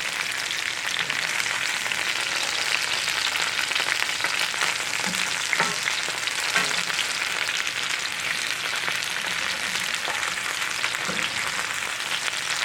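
Sliced potatoes and onions frying in oil in a cast-iron skillet: a steady sizzle with a few sharp pops and crackles.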